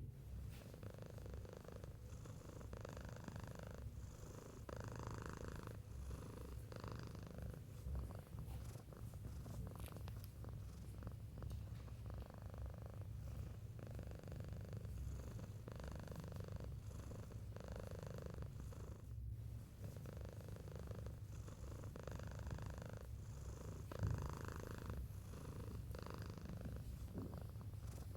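A domestic cat purring continuously, the purr swelling and easing roughly every two seconds with its breathing. There is one brief bump late on.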